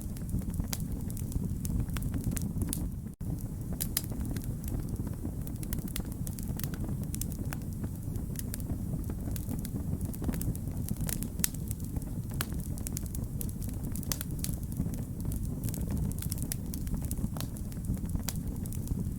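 Wood fire burning with a steady low rumble of flames and frequent irregular sharp crackles and pops from the burning logs. The sound drops out very briefly about three seconds in.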